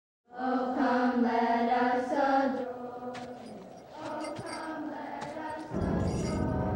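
A choir singing long held notes that die away after about two and a half seconds. Softer music follows, and a louder, fuller passage with deep notes comes in near the end.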